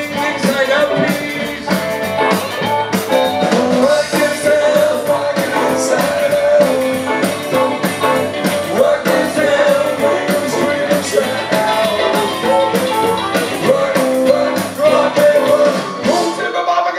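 Live band playing rock and roll: upright double bass, electric guitar and drums keeping a steady beat, with a man singing over it.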